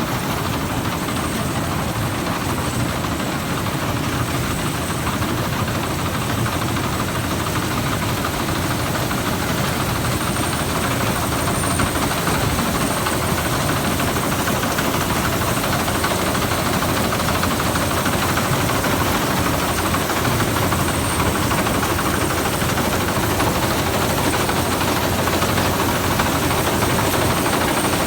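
Rice combine harvester running steadily while harvesting, a dense, even engine-and-machinery noise that does not change.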